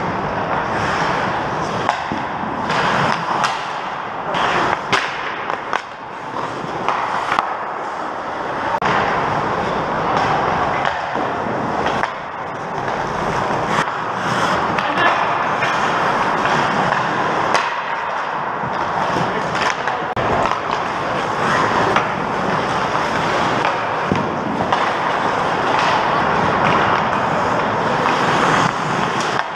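Ice hockey play: skate blades scraping and carving on the ice, with frequent short sharp clacks of sticks and pucks.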